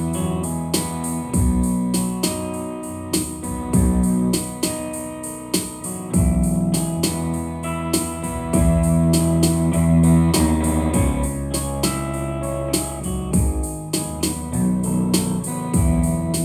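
Instrumental passage of a song, without singing: held chords over a steady beat.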